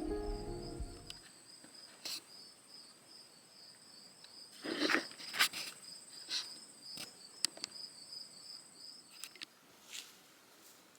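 An insect, cricket-like, trilling in high, steady pulses that stop about nine seconds in, with a few faint clicks and rustles of handling.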